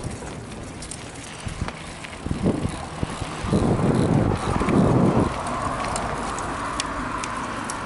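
Bicycle tyres rolling over a dirt pump track, with a louder low rumble for about two seconds in the middle and a few sharp clicks near the end.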